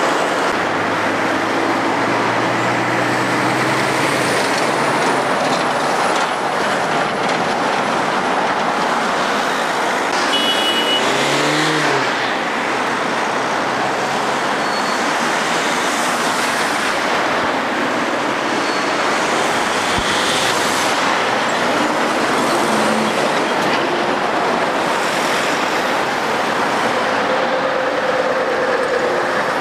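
Busy road traffic: a steady wash of tyre and engine noise from cars, vans and lorries passing. A heavy diesel lorry engine is heard at the start, an engine note rises and falls about eleven seconds in, and a Scania articulated lorry comes round near the end.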